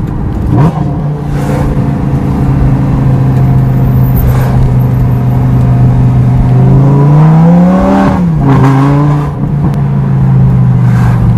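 Lamborghini Gallardo LP560-4's 5.2-litre V10 with an Armytrix exhaust, heard from inside the cabin while driving. It runs at a steady pitch with a short rise just after the start. About two-thirds of the way in the revs climb for a second or so, then drop back quickly and settle steady again.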